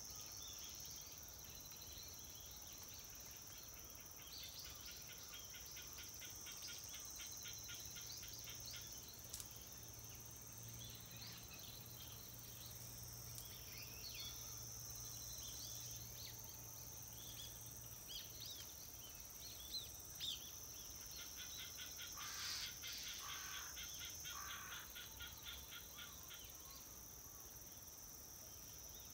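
Faint outdoor ambience: a steady high-pitched insect chorus, with several runs of quick bird chirps.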